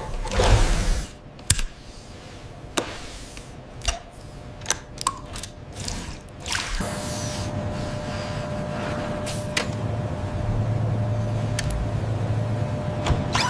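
Mechanical sound effects: a loud rush in the first second, then scattered sharp clicks and ratchet-like ticks, then a steady low machine hum with a thin held tone from about seven seconds in.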